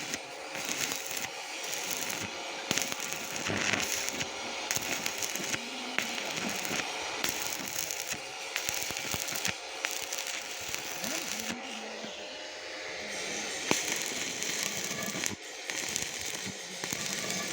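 Electric arc welding: the arc crackling and sputtering steadily, with many sharp pops.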